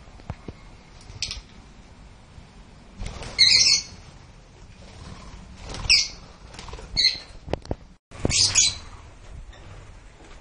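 Lovebirds giving harsh, high-pitched squawks: about four loud calls a second or two apart, the first and last the longest.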